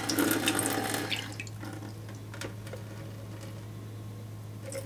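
Water from a sink faucet running into a small plastic test vial and splashing into a stainless steel sink. The tap is shut off about a second in, and a few faint ticks follow.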